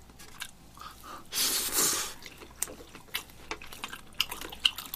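Eating sounds: a loud slurp of noodles about a second and a half in, with chewing and scattered light clicks of chopsticks against plastic takeout containers.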